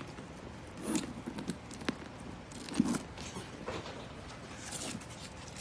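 Handling noise from a canvas handbag being opened and moved about on paper: scattered rustles and scuffs, with a few light sharp clicks.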